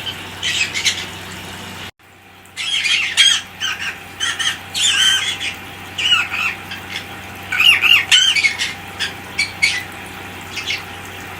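Pet parrots calling indoors: many short squawks and chirps that bend up and down in pitch, with a brief break in the sound about two seconds in.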